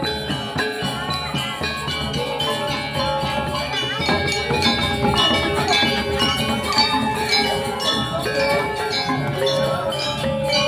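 Balinese gamelan music: many ringing, bell-like struck metal notes at different pitches, played continuously.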